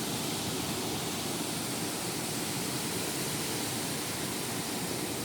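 Heavy rain falling steadily in a storm, a continuous even hiss.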